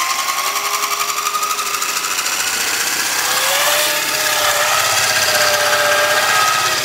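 Cordless Dremel rotary tool's motor whining at high speed as it drives the main rotor of a homemade RC helicopter in flight, the rotor blades giving a fast, even buzz. The pitch holds steady, and a second, lower tone comes in about halfway.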